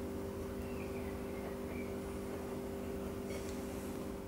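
A steady low hum of room tone made of a few fixed low tones, with no distinct sound of the knife cutting through the tart above it.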